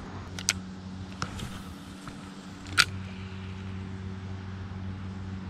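A steady low hum runs throughout, with a few sharp clicks from a spinning reel being handled during a cast, the loudest a little under three seconds in.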